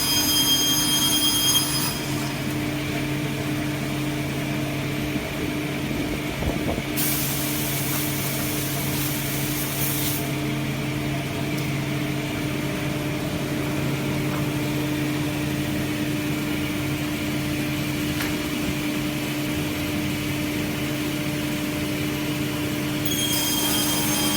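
Sliding table panel saw running with a steady motor hum. A high whine sounds at the start and again near the end, and a hiss rises for about three seconds some seven seconds in.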